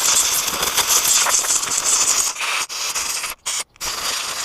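Compressed air blowing out the passages of a Yamaha Mint scooter's carburetor body during cleaning: a loud, steady hiss, cut off briefly three times in the second half.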